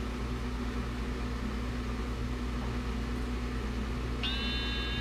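Steady low mains hum from the Bluetooth amplifier and speakers added to a 1920s Crosley Gembox. About four seconds in, a single held electronic tone sounds for about a second and a half as the Bluetooth link is made from a tablet.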